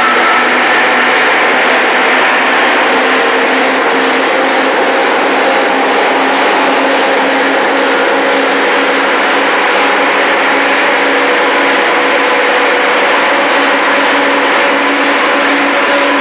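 Diesel vehicle engine running steadily under load on a roller dynamometer, held in direct gear for a fuel-consumption test. Its pitch rises slightly a few seconds in, then holds.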